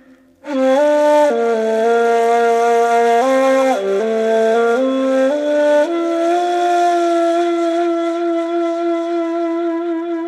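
Ney (Turkish end-blown reed flute) playing a slow, breathy melody that steps between notes, then holds one long note from about the middle and fades near the end.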